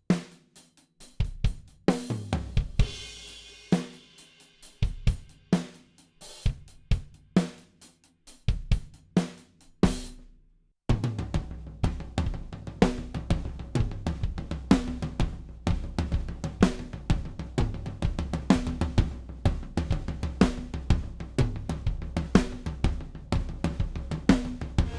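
Acoustic drum kit played through close and overhead microphones (Earthworks DK6 pack: kick, tom/snare and overhead mics): spaced kick, snare and tom hits with a cymbal crash at first. After a brief pause about ten seconds in, a steady groove starts, with a continuous low bass underneath.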